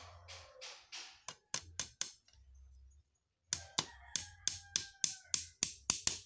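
A small hammer tapping a nail into the joint of a thin wooden cage frame: four light taps, a pause, then a quicker run of about a dozen strikes, about four a second, with a faint ringing from the struck strip.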